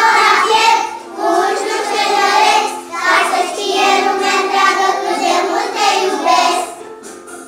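A group of young children singing together in unison, in phrases with short breaks for breath; the singing stops shortly before the end.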